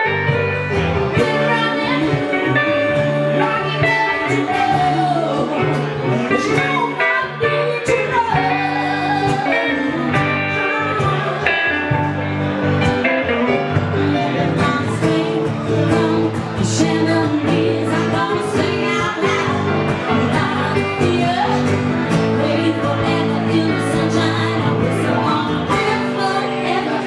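Live blues band playing: electric guitar, acoustic guitar and electric piano keyboard, with a woman singing.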